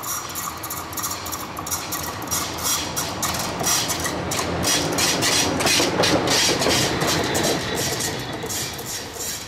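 V36 diesel locomotive running as it approaches and passes close by, with a second locomotive in tow. Engine and wheel noise swell to a peak about six seconds in, then fade as it moves away.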